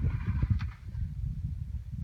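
Irregular low rumbling and scuffing, with a sharp knock about half a second in: clothing and shoes scraping and bumping against granite as people climb through a narrow rock crevice.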